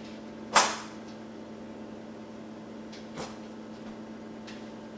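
A sharp knock about half a second in, then a softer one about three seconds in, from kitchen things being handled at the counter and cabinets. A low steady hum runs underneath.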